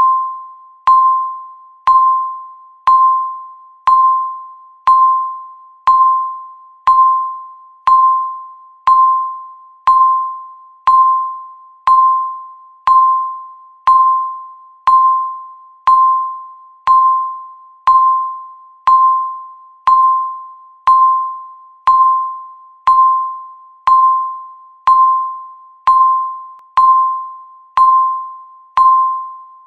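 Countdown timer beeping once every second: a single electronic tone, each beep starting sharply and fading away before the next.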